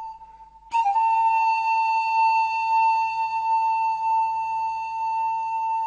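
Background music: a single high, flute-like note held steadily. It fades briefly and is sounded again under a second in, then sustained.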